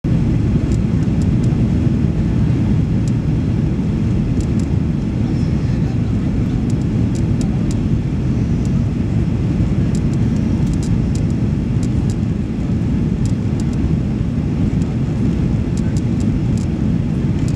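Steady cabin noise of a Boeing 737 Next Generation on final approach with flaps extended, heard from a seat over the wing: a deep, even rush of airflow and CFM56 engine noise. Faint light clicks come and go on top.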